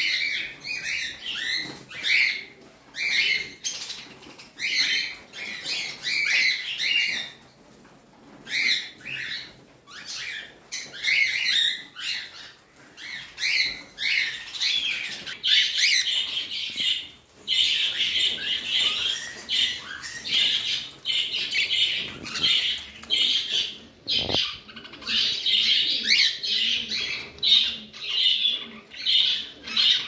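A flock of budgerigars chattering and warbling continuously in rapid, overlapping chirps, with a short lull about eight seconds in.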